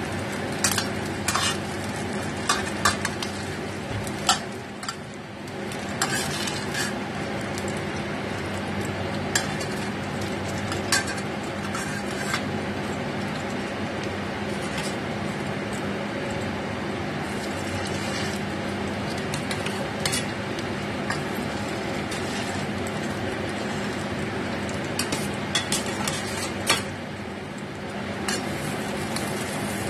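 Oil sizzling steadily in a stainless steel frying pan as tofu pieces and squid-paste balls fry, with scattered sharp clicks and scrapes of a metal spatula against the pan. A steady low hum runs underneath.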